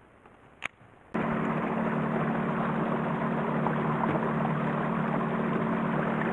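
A small boat's motor running steadily while the boat travels, a constant hum over the rush of water along the hull. It begins abruptly about a second in, after a brief quiet moment with a single click.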